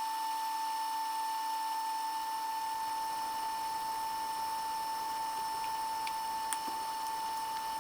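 Small electric motor running at constant speed with a steady high whine, as from a bench tool used in circuit-board repair.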